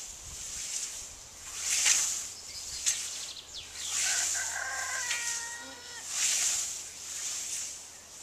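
Hand scythes swishing through tall grass in a steady rhythm, one stroke about every two seconds. A rooster crows once in the middle.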